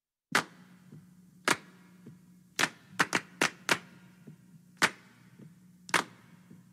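About nine sharp clicks at uneven intervals, several close together around the middle, over a faint steady hum.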